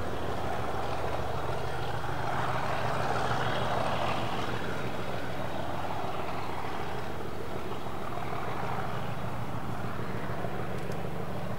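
Diesel locomotive engine running steadily. A low, even engine hum runs throughout, and a rougher, noisier layer swells a couple of seconds in, then eases off.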